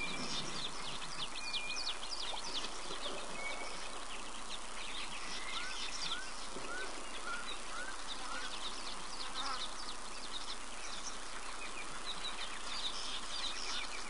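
Bushveld ambience: several birds calling with many short high chirps, and a run of five or six short arched whistles repeated about three a second, over a steady insect hiss.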